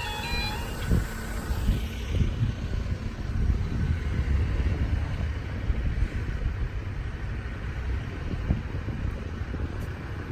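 A level crossing's two-tone warning alarm sounds briefly and stops about half a second in. It leaves a steady low rumble with irregular low thumps.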